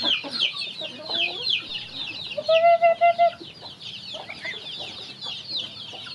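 A flock of young chickens and ducklings peeping: a dense, continuous chorus of short, high, downward-falling peeps. About halfway through, one louder, lower, steady-pitched call rises above them for nearly a second.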